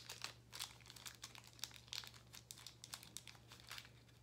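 Jewelry and its packaging being handled: faint, irregular rustles and light clicks, over a low steady hum.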